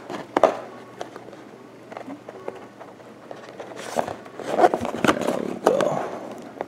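Handling noise as hands work plastic tabs out of a plush toy's packaging: a sharp click near the start, then light ticks, and a busier run of scraping and rustling over the last two seconds or so.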